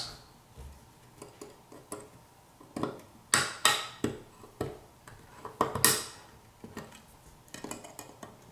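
Small metal clicks and clinks as the metal clamps of the processor's X-shaped heat-sink bracket are worked loose from the back of an Xbox One X main board with a small hand tool. The sharpest clinks fall in a cluster from about three to six seconds in.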